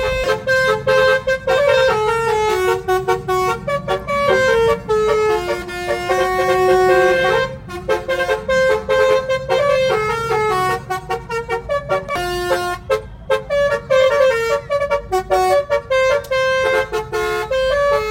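Telolet horn, a multi-note musical horn fitted to a car, playing a fast tune of short notes with brief gaps between them. One lower note is held longer about six seconds in.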